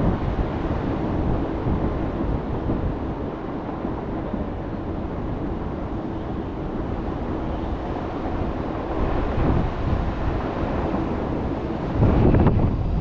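Wind buffeting the microphone over a steady rumble of city and railway traffic. It gets louder about twelve seconds in.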